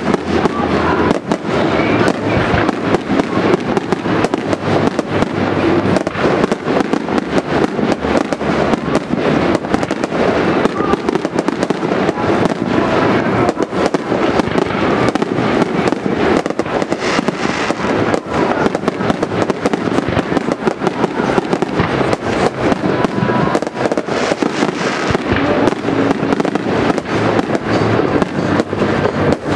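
Fireworks display: an unbroken run of many bangs and crackles from shells bursting, packed closely together.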